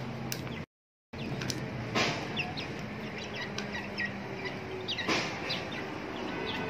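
Young chickens peeping in many short, high chirps as they feed, over a low steady hum, with two louder short sounds about two and five seconds in. The sound cuts out for about half a second near the start.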